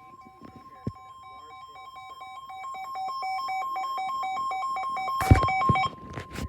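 Emergency alert tones: a steady single-pitch warning tone with a pulsing electronic beep over it, about four beeps a second, growing louder. A loud, harsh burst of noise cuts in a little after five seconds.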